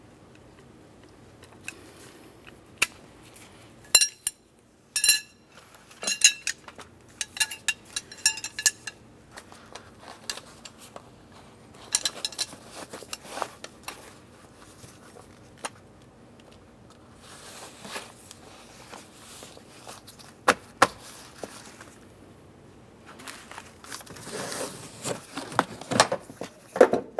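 Steel spare-tire tool rods clinking and ringing as they are pulled apart and handled. Near the end comes the rustle and soft knocks of the tool kit pouch being folded and pushed into its storage compartment.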